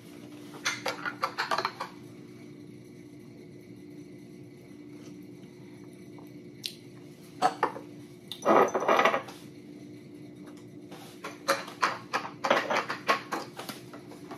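Metal spoon stirring coffee in a glass mug, clinking against the glass in several short spells, with a few clicks and knocks of items handled on the counter near the end. A faint low steady hum runs underneath.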